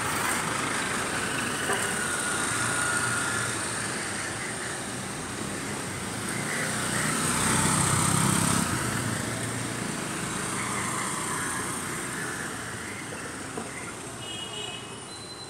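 Street traffic: motor vehicles passing along a city street, one growing louder to a peak about halfway through and then fading. A motor scooter passes near the end.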